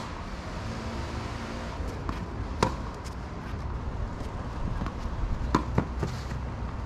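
Tennis ball struck by rackets and bouncing during a rally: sharp pops every two to three seconds, with two close together near the end, over a steady low background hum.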